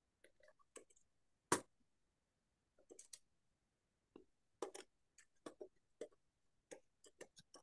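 Faint typing on a keyboard: short, irregular runs of keystroke clicks, with one louder click about a second and a half in.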